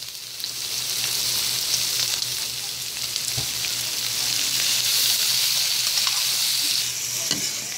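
Ham and bacon sizzling steadily in butter with ground pork in a wok, while a metal ladle stirs and clinks against the pan a few times.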